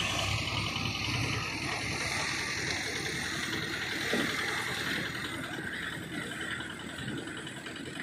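Loaded diesel dump trucks driving along a dirt road, their engines rumbling with tyre noise and slowly fading as they pull away.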